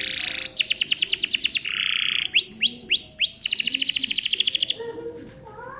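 Domestic canary singing a varied song: fast rolling trills of repeated notes alternate with buzzy stretches and a few rising slurred whistles. The song fades down after about five seconds.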